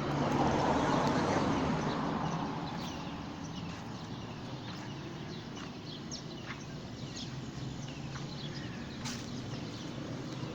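Small birds chirping: many short, scattered calls over a steady outdoor background hiss.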